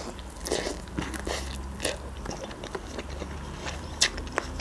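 Close-up eating sounds of a person eating instant noodles: wet chewing with many small mouth clicks, and short slurps as forkfuls of noodles are drawn in.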